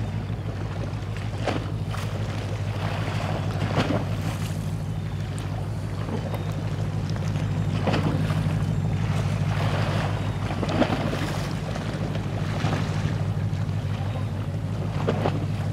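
The diesel engine of the general cargo ship Wilson Sky passing close by, a steady low throb. Gusts of wind hit the microphone and water washes along the hull.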